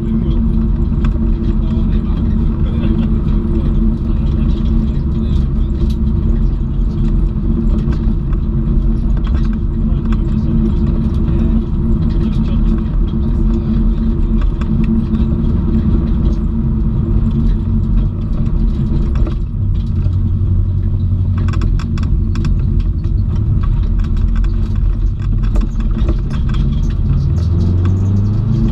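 Subaru Impreza WRX STI's turbocharged flat-four engine running at speed, heard from inside the cabin with road noise. The engine's pitch rises near the end as the car accelerates.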